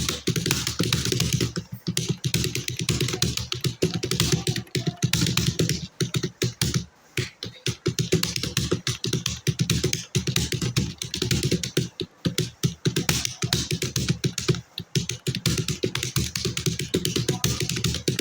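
Computer keyboard being typed on fast and continuously, a rapid run of key clicks broken by a few short pauses.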